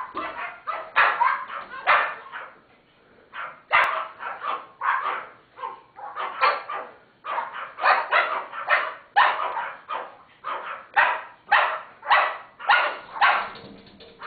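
Teacup Pomeranians and a cockatoo barking together: short, sharp barks over and over, about one to two a second, with a brief lull a little over two seconds in.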